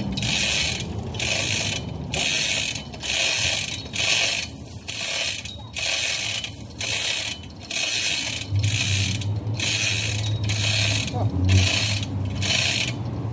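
Hand-pulled chain hoist on a steel tripod, clicking and rattling in even repeated pulls, about two a second, as its chain is drawn hand over hand to lift a rose bush and its root ball out of the ground.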